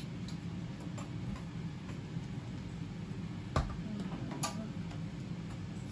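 Steady low kitchen background hum around a hot griddle, with two sharp light clicks a little past halfway, under a second apart.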